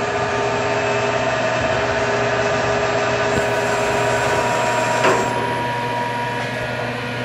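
Atrump CNC vertical mill running, its spindle turning at about 830 RPM while the axis drives move, giving a steady machine whine of several tones. About five seconds in there is a short clunk, and the whine changes after it.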